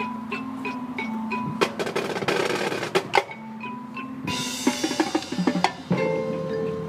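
Marching band playing its field show: held notes from the horns over snare drum rolls and ticking percussion, with mallet keyboards from the front ensemble. A bright crash comes about four seconds in, and a fuller held chord enters near the end.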